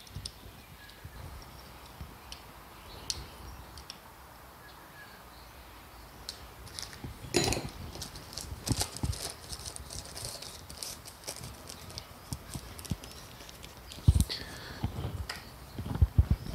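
Small metal carburettor parts and hand tools clicking and knocking on a workbench: quiet at first, then a rapid scatter of light taps starting about halfway through, and a few sharper knocks near the end.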